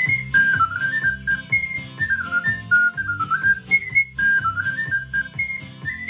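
Ocarina playing a clear, high melody in short stepping phrases, with a similar phrase repeated about halfway through, over a low instrumental accompaniment.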